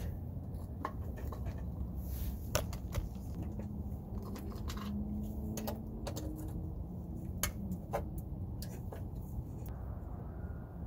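Light clicks and rattles of wires and crimped ring terminals being handled and fitted by hand, irregular and scattered, over a steady low background rumble.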